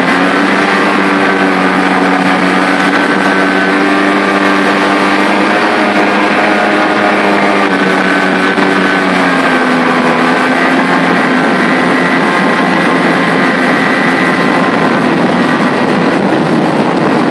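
Watercraft engines running at steady speed, with spray and water rushing past; the engine note shifts slightly about halfway through.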